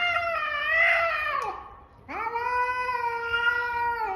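A cat yowling in two long, drawn-out calls, the first trailing off about a second and a half in and the second starting about half a second later.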